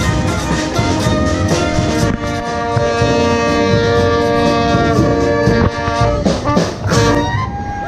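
Street brass band of trombones, saxophones and trumpets, with a drum, playing a tune. The horns hold a long chord for a few seconds, then come a few drum strokes, and the music stops near the end.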